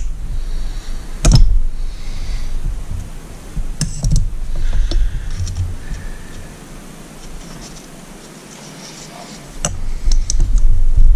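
Clicks and light knocks of an outboard engine's metal piston and crankshaft parts being handled, with a few sharp clicks and a quieter stretch in the middle.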